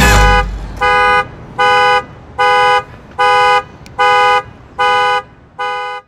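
A brass-and-drum band cuts off, then a car alarm sounds the car's horn: seven steady, identical honks in an even rhythm, a little more than one a second.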